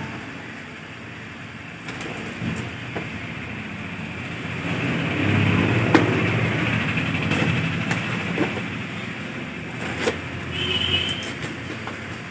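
A shoe parcel being handled and opened: rustling of packaging with scattered clicks and taps. A low hum rises and fades in the middle, and a short high squeak comes near the end.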